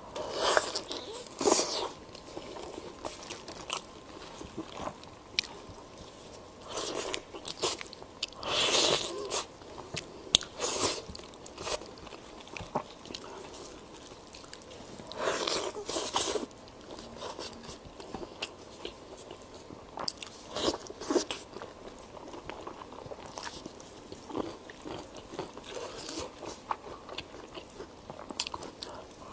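Biting into and chewing braised pork knuckle, skin and meat, with irregular louder bites every few seconds.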